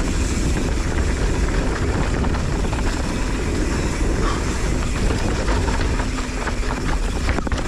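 Wind rushing over the microphone of a YT Capra mountain bike descending a dirt and rock trail at speed. The tyres roll over the rough ground, and the chain and frame rattle with many small knocks throughout.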